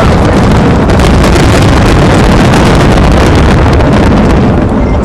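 Fireworks going off in a dense, unbroken barrage, so loud that the recording is overloaded into a steady wall of noise shot through with rapid crackles.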